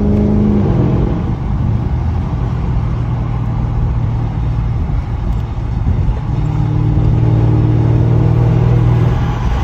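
Exhaust of a Porsche Panamera 4S's 4.8-litre V8 with the mufflers deleted, heard from inside the cabin while cruising at highway speed. A steady exhaust drone fades about a second in, leaving mostly road rumble, and the drone returns about six seconds in.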